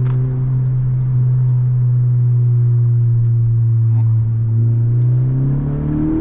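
Honda Civic Si's 1.5-litre turbocharged four-cylinder engine running at steady revs after a downshift, its tone holding one pitch, then climbing near the end as the car accelerates.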